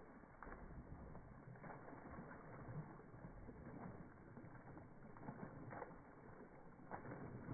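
Faint, irregular splashing of a dog wading and bounding through shallow pond water.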